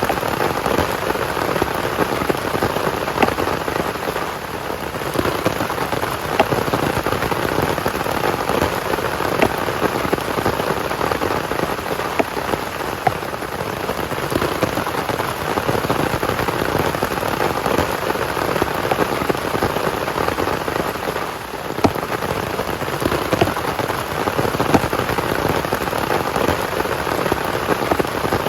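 Heavy rain falling steadily, with scattered sharper drop hits standing out from the hiss.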